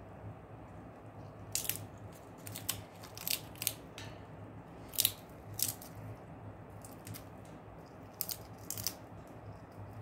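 Indian ringneck parakeet biting and crunching a peanut with its beak: irregular sharp cracking clicks, a dozen or so, over a low steady hum.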